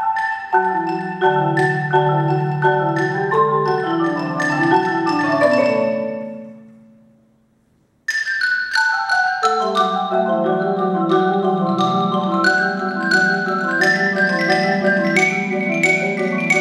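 Mallet percussion ensemble of marimbas and xylophone playing: quick struck notes over sustained low rolled marimba notes. About six seconds in the sound dies away to near silence, and about two seconds later the whole ensemble starts playing again suddenly.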